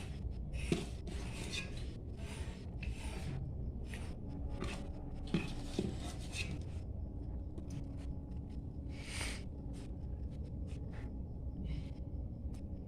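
Hands handling food and kitchen utensils: repeated short rustling and rubbing in the first half, then scattered light clicks and knocks.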